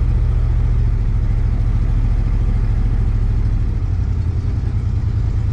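1970 Plymouth Fury III's engine and exhaust running as the car drives at low speed: a steady low rumble, picked up by a camera mounted on the hood.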